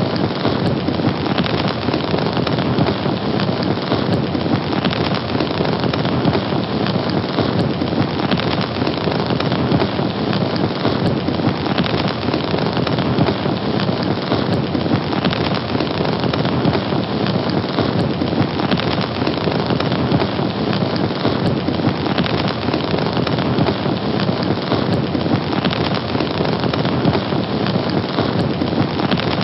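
Fire burning steadily, a dense, even rush of noise that does not let up.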